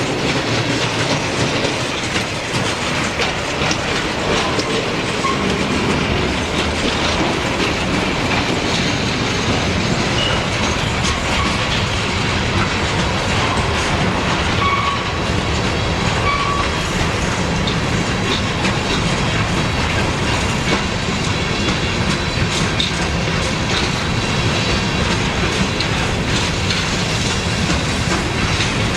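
A freight train's cars rolling steadily past, the wheels clattering over the rail joints in a continuous rumble, with a few brief faint squeals from the wheels.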